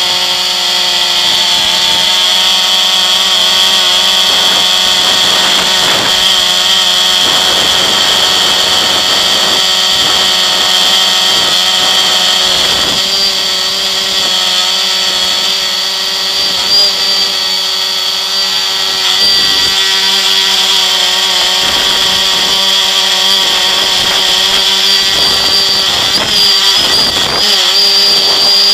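Multirotor drone's electric motors and propellers whining steadily, heard close up from a camera on the drone itself, the pitch wavering a little near the end as it manoeuvres.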